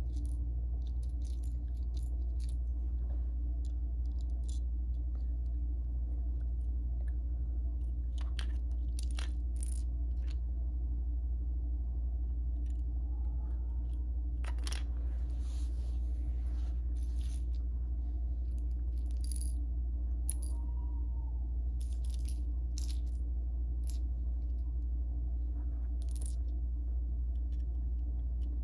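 Small plastic Lego bricks clicking and clattering as they are picked from a pile, tapped on a wooden floor and pressed together, in scattered sharp clicks at irregular moments, over a steady low hum.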